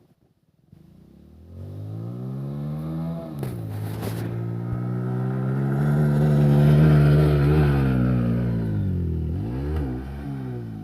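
Hero Splendor motorcycle's single-cylinder four-stroke engine pulling under throttle, its pitch rising. It drops briefly about a third of the way through, as at a gear change, climbs to its loudest past the middle, then dips again near the end.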